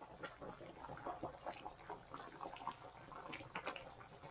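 Large pot of water at a rolling boil with artichoke halves in it, bubbling faintly with many small, irregular pops.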